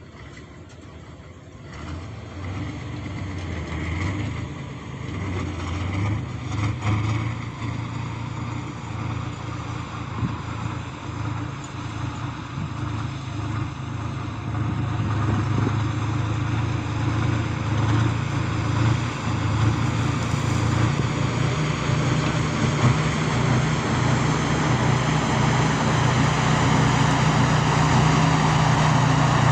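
K-701 tractor's diesel engine running with a steady low drone, quieter for the first couple of seconds and then building gradually louder.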